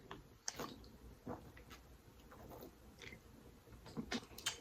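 A person chewing food close to the microphone, with faint scattered wet mouth clicks, a few louder ones near the end.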